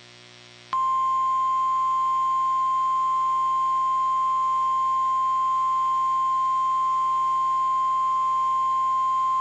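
NOAA Weather Radio 1050 Hz warning alarm tone: one steady, loud pure beep that comes in sharply about a second in over faint radio hiss and holds unchanged. It is the alert that a warning broadcast is about to follow.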